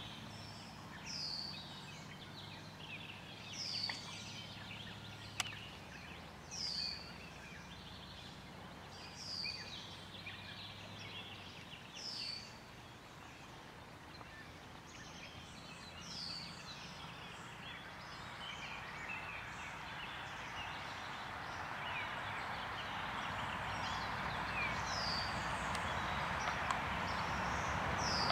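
A bird calling repeatedly, a short high note sliding downward every two to three seconds, over the steady rush of river water that grows louder in the second half.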